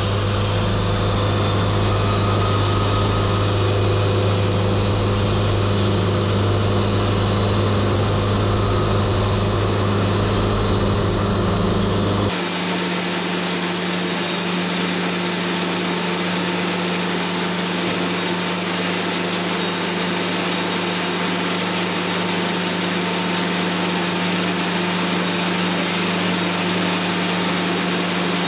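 Portable band sawmill running and sawing through a log, a loud steady machine noise. About twelve seconds in the sound changes abruptly, the deep hum dropping away and a higher steady hum remaining.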